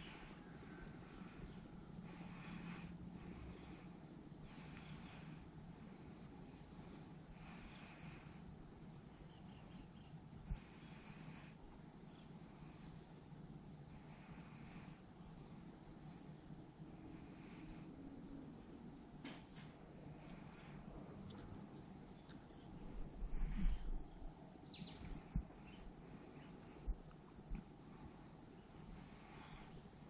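Steady, high-pitched chorus of insects trilling throughout, with a few low knocks from the snare being handled near the end.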